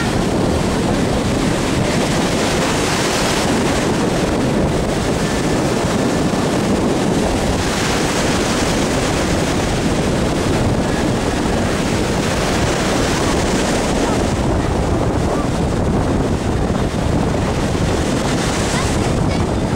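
Wind buffeting the microphone over a steady rush of surf, with a heavy low rumble throughout.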